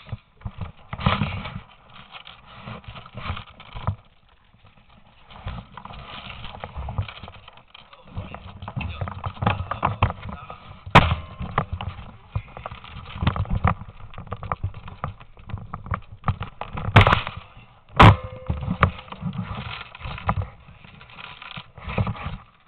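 Footsteps crunching and scuffing over broken tiles and rubble on a hard floor, uneven and continuous, with three sharp cracks about 11, 17 and 18 seconds in.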